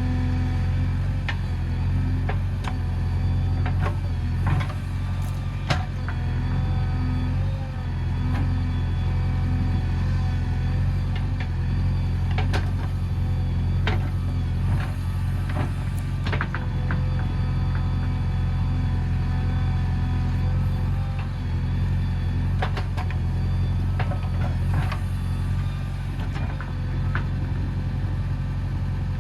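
JCB 3DX backhoe loader's diesel engine running steadily, with a steady whine above it and scattered sharp clanks.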